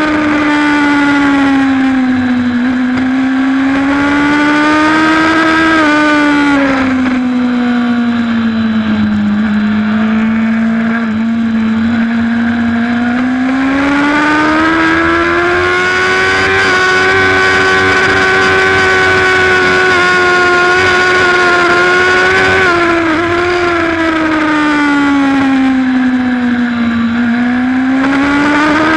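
Race superbike engine heard from on board the bike, its pitch rising and falling smoothly as the rider gets on and off the throttle through corners. The engine note holds steady for several seconds in the middle, then drops and climbs again near the end.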